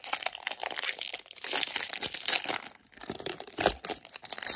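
Silver-foil wrapper of a Topps baseball card jumbo pack crinkling and tearing as it is opened by hand, an irregular crackle with a short pause a little under three seconds in and sharper loud crackles near the end.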